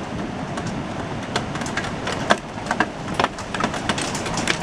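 Pea-sized hail coming down: a steady rush of falling stones with many sharp, irregular ticks and clicks as hailstones strike hard surfaces, like pebbles being tossed at the house.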